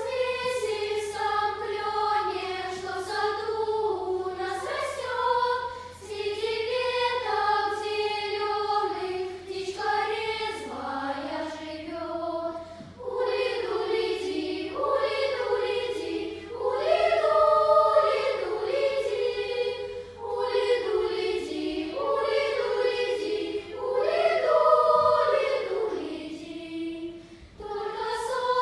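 Children's choir singing, coming in at the start and going on in phrases with brief breaks between them.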